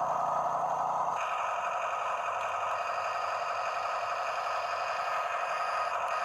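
Huina 1573 RC excavator's electric motors and gearboxes running with a steady whine, which shifts in pitch about a second in.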